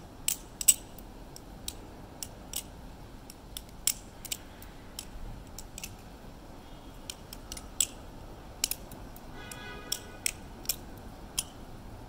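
Glidr Original 4 balisong trainer being flipped: an irregular series of sharp metal clicks and clacks as the handles and blade swing open and shut and strike together.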